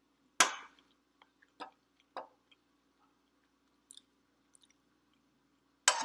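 Close-miked eating sounds: two loud sharp clicks, about half a second in and near the end, with a few smaller mouth clicks and chewing noises between them, over a faint steady hum.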